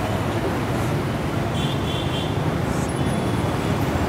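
Steady rumble of road traffic, with a faint brief high tone near the middle.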